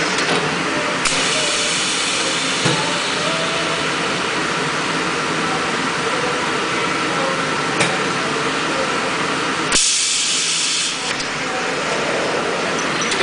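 High-frequency plastic welding press running through a weld cycle: a steady machine hum and hiss, with a faint steady whine through the middle and a few sharp clicks as the press closes and opens. Near the end a loud hiss of air lasting about a second as the press lifts.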